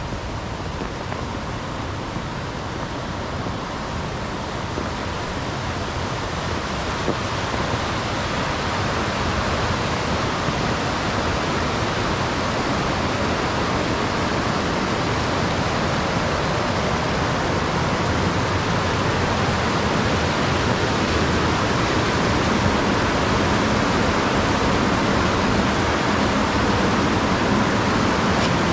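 Waterfall rushing: a steady wash of running water that grows gradually louder over the stretch.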